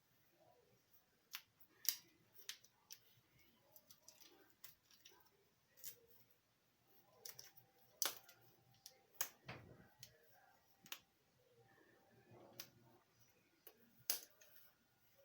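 Faint, scattered sharp clicks and light handling noises, about a dozen irregular ticks over quiet room tone, with a brief low thud-like rumble about halfway through.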